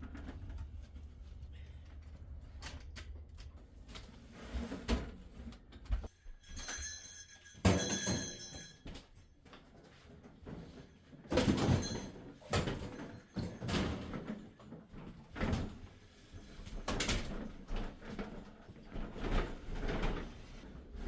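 Handling noises: a run of irregular knocks and clunks, with a squeaking scrape lasting about two seconds, some seven seconds in.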